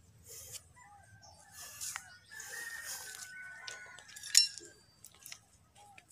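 A rooster crowing: one long, slightly falling call about two seconds in. Rustling and a sharp knock about four seconds in, the loudest sound here.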